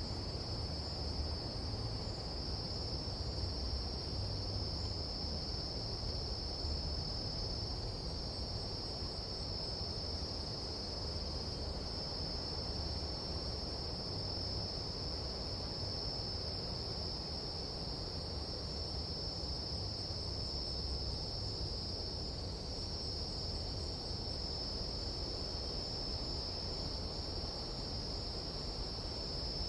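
Nighttime jungle insect chorus: a continuous high-pitched steady drone of calling insects, with a low rumbling noise underneath.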